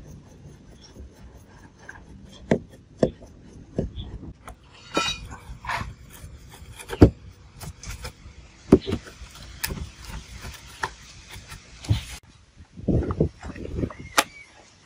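Disassembly of an old Makita electric drill with a screwdriver and needle-nose pliers: scattered clicks, knocks and scrapes of metal tools working the screws of the plastic housing, with a short metallic scraping about five seconds in and a flurry of knocks near the end as the drill is handled on a wooden board.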